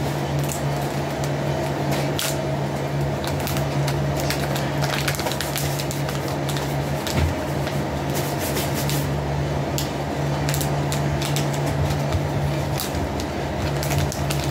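A steady low hum, such as a running fan, with scattered small clicks and rustles of small items being handled.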